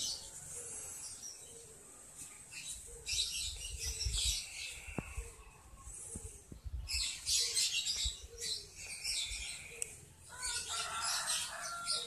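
Young lovebirds chirping in bursts of high-pitched chatter, three main bursts about three, seven and ten seconds in.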